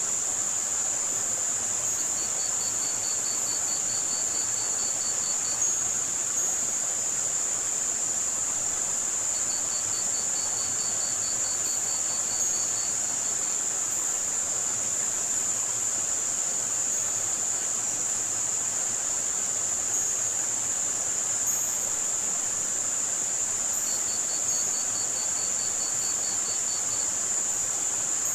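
Tinnitus-masking mix: a steady, high-pitched band of hiss with scattered tiny high chirps over a soft rushing-water hiss. Three times, a pulsing cricket trill of about three seconds joins in.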